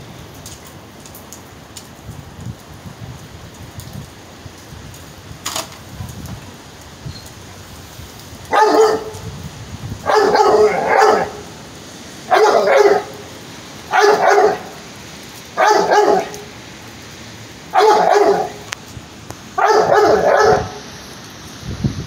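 Pit bull barking up at a cat perched out of reach on a fence. After about eight seconds of quiet it gives about seven long, drawn-out barks, one every second and a half to two seconds.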